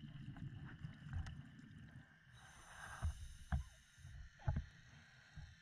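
Muffled underwater sounds of a scuba diver's breathing through the camera housing: a low bubbling rumble of exhaled air, then a regulator hiss about halfway through, with a few dull knocks.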